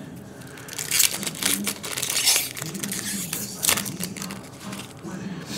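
Foil trading-card pack wrappers being torn open and crinkled by hand, in irregular crackling rips with a sharp, loud one a little past halfway.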